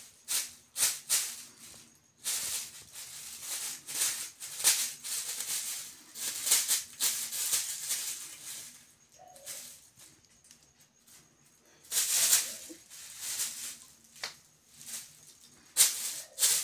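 Thin clear plastic bag crinkling and rustling in irregular bursts as kittens bite, paw and drag it across a hard floor, with a lull of a couple of seconds past the middle.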